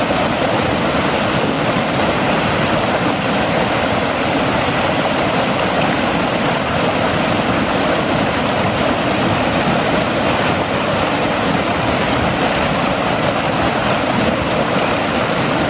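Fast stream water rushing and splashing steadily around a small 3D-printed micro water turbine held down in the current, the water churning and frothing behind it where the builder says it is cavitating.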